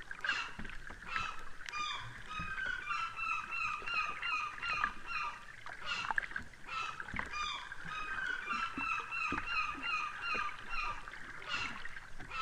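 Gulls calling: many short cries that fall in pitch and repeat several times a second, overlapping one another.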